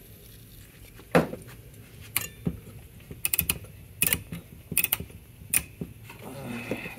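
Rotary wafer switches on a Zenith stereo console chassis being turned through their detent positions to work contact cleaner into them: a series of sharp, irregular clicks, about one a second, some in quick pairs.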